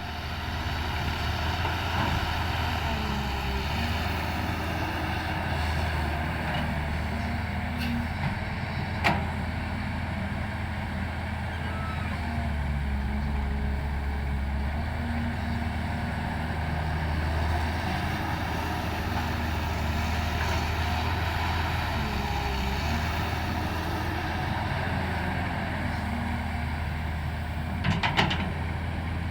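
Diesel engine of heavy earthmoving machinery running steadily, with its pitch and load shifting a little as the machine works. A sharp knock comes about nine seconds in, and a short clatter near the end.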